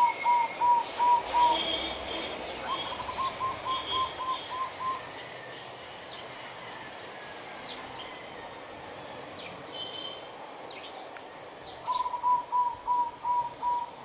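Zebra dove giving its courtship call, three runs of short staccato cooing notes at about four notes a second, near the start, about three seconds in, and near the end. It is one dove calling to get the attention of the other.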